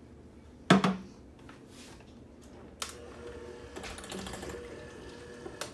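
A sharp knock about a second in. Then an electric hand mixer clicks on near the middle and runs at low speed, its beaters rattling steadily in the bowl as the buffalo sauce is worked into the cream cheese.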